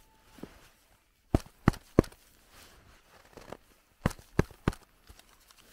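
Gloved hands slapping snow together to pack it into a firm lump: two runs of three sharp slaps, about three a second, with a pause between them.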